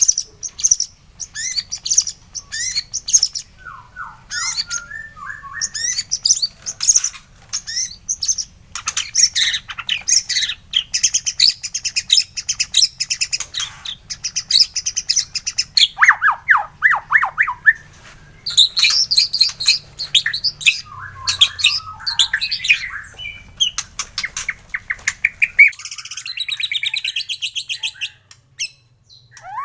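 White-rumped shama singing a long, fast, varied song of chirps, rapid trills and slurred whistles, used as a bait song to set another shama singing. A faint low hum runs under it and stops near the end.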